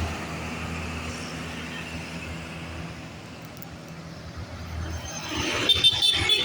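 Diesel bus engine idling with a steady low hum. Near the end comes a brief, louder high-pitched sound.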